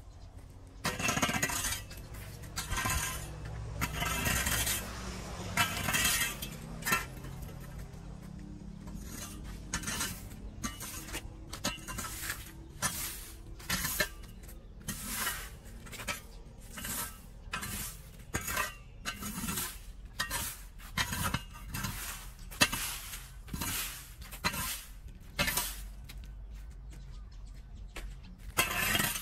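Broom sweeping dry leaves and twigs across a concrete pavement: repeated scratchy strokes, long ones at first, then quicker, shorter strokes at about one or two a second.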